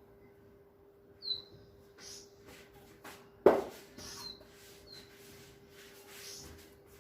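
A small bird chirping a few times, each chirp short, high and falling, over a faint steady hum. About three and a half seconds in there is a single sharp clank of a kitchen utensil, the loudest sound, with a few lighter knocks around it.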